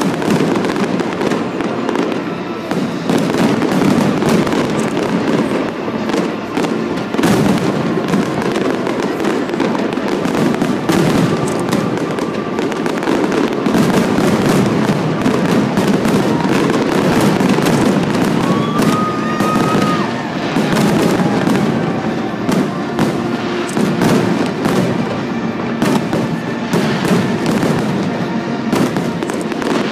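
A fireworks display in a dense, continuous barrage: overlapping bangs and crackling shell bursts with no let-up.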